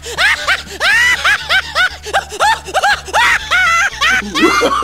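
Comic background music: a steady bass line under a quick string of high, squeaky notes that each rise and fall, about two or three a second.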